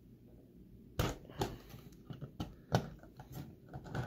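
Plastic LEGO parts clicking and knocking as the cherry-picker boom arm is handled: a handful of sharp, separate clicks, the loudest about a second in and again near three seconds.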